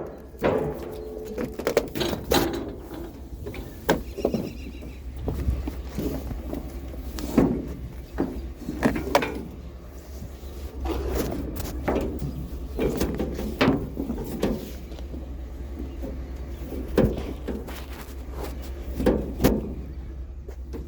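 Irregular knocks, thunks and scraping of salvaged items being handled and shifted, some with short creaks, over a steady low hum.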